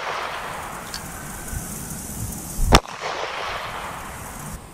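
A Smith & Wesson .38 Special revolver firing cast-bullet rounds: one sharp shot just past the middle, its report echoing away after it. At the start, the echo of a shot just before is still fading.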